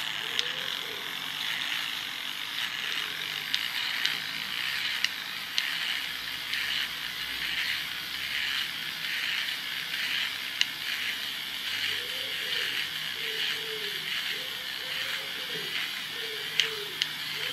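Small battery-powered motor of a Kenner toy car running and whirring through its plastic gear train, with a few sharp clicks. The gears are stiff and loosening as it runs, which the owner puts down to grease gummed up from long disuse.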